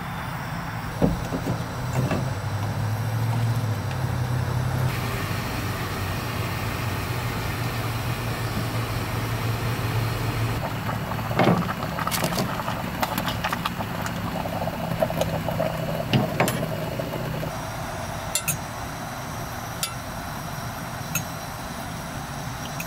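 A steady low mechanical hum, like an idling engine, under a hiss, with scattered sharp clicks and clinks of a fork and a stainless steel pot on a propane camp stove.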